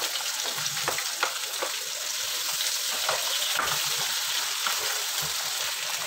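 Sliced red onions frying in hot ghee and oil in a non-stick wok: a steady sizzling hiss with scattered small clicks as they are stirred with a spatula.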